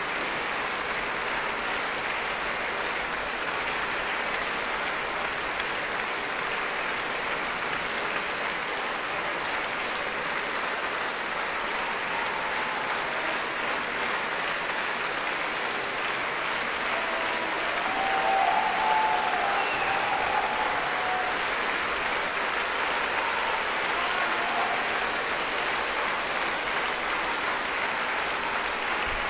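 Concert hall audience applauding steadily, swelling briefly about two-thirds of the way through.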